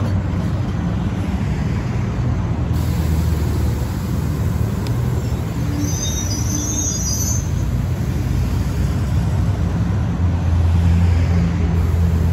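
Diesel train locomotive running, a steady low engine drone that grows louder near the end. A brief high-pitched squeal comes about six seconds in.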